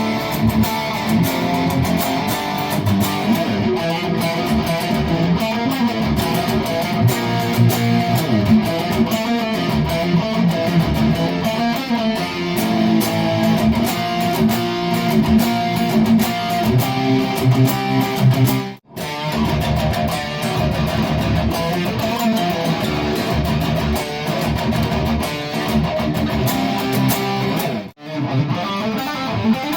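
PRS SE Tremonti electric guitar played through a high-gain Bogner Uberschall Rev. Blue amp, picked up from the speaker cabinet: continuous lead lines with two brief stops, about two-thirds of the way through and again near the end.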